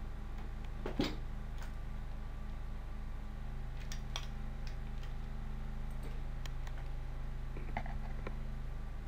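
Room tone of a low, steady electrical hum, with a few faint clicks and knocks, the clearest about a second in.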